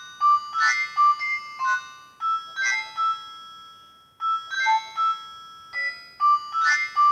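A Nokia 108 ringtone playing: an electronic melody of short notes over drum-like hits about once a second. It drops out briefly about four seconds in, then the tune picks up again and its opening phrase returns near the end.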